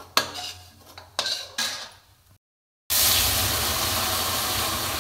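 A metal spoon scraping and clinking against a kadhai as roasted churma is scooped out, with a few sharp knocks. After a short cut, hot water is poured into the hot kadhai, a loud steady hiss that fades slowly as it steams.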